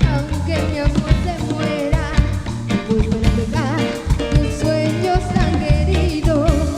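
Latin tropical dance music in a salsa style, a singer's wavering lead voice over bass, drums and percussion.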